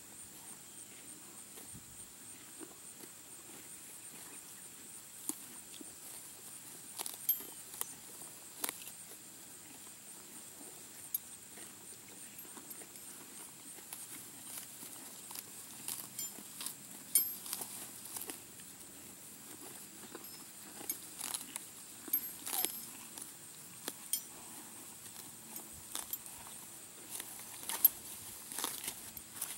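Horses grazing close by: scattered crisp rips and crunches of grass being torn and chewed, coming more often in the second half.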